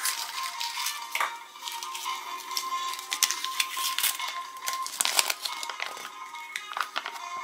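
Crinkling and crackling of a folded paper leaflet being pulled from a plastic Kinder Surprise capsule and unfolded, with light plastic clicks from handling the capsule, over quiet background music.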